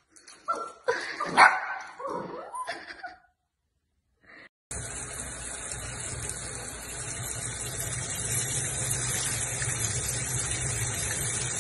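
A small puppy barking a few times, one bark much louder than the rest. After a short silence, a handheld shower sprayer runs steadily, water spraying onto a small dog standing in a stainless-steel sink.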